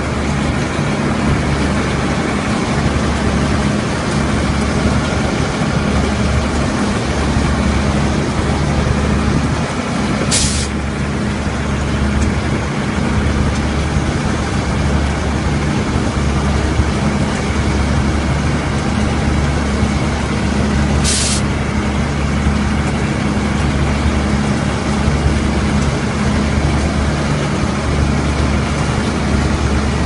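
Self-propelled combine harvester's diesel engine and threshing machinery running steadily under load while cutting rice, a constant low drone. A short hiss cuts in twice, about a third and two-thirds of the way through.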